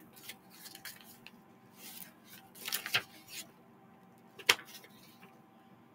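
A sheet of paper rustling and crinkling in the hands, in short irregular bursts, louder about three seconds in, with one sharp tap about four and a half seconds in.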